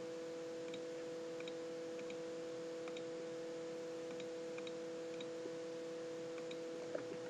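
Steady electrical hum with a scattering of faint computer mouse clicks.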